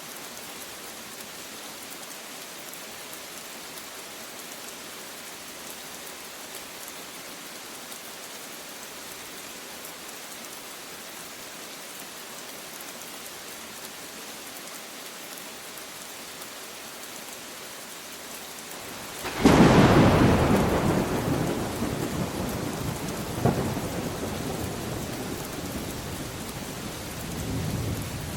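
Steady rain falling, then about two-thirds of the way in a sudden loud thunderclap that rolls on as a fading rumble, with a second smaller crack a few seconds later and another low swell of thunder near the end.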